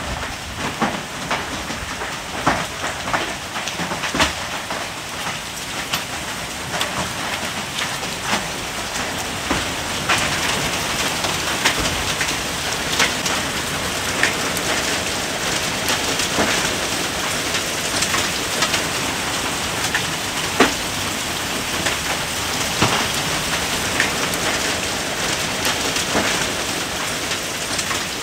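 Heavy hail falling with rain: a steady dense hiss, broken throughout by frequent sharp knocks of individual hailstones striking the ground and wet paving.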